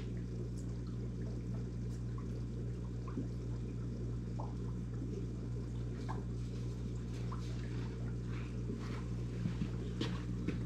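Aquarium water trickling with scattered small drips and plinks over a steady low hum from the tank's equipment.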